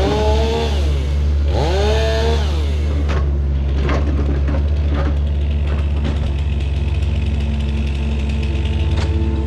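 Heavy earthmoving machine's engine running steadily. Its pitch rises and falls back twice in the first couple of seconds as it takes load, and short knocks come through in the middle.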